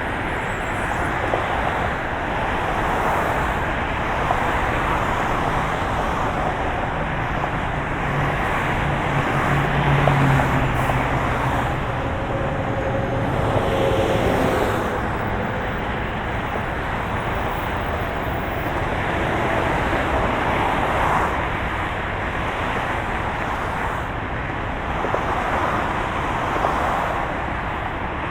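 Road traffic: a steady wash of passing cars and tyre noise. About ten seconds in, one vehicle passes closer and louder, its low engine hum rising and then fading.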